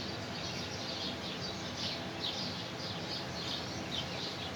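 Small birds chirping repeatedly, several short high chirps a second, over a steady background hiss.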